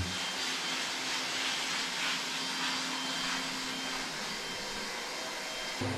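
A small blower motor running, a steady, even whooshing hiss.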